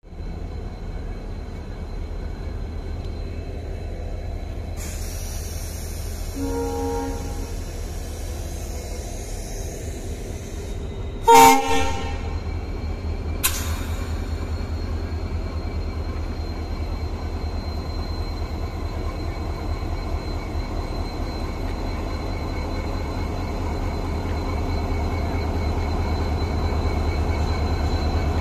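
Indian Railways WDP4D diesel locomotive running with a steady low rumble as it rolls slowly along the platform. Its horn sounds faintly and briefly about six and a half seconds in, then gives one short, loud blast about eleven seconds in.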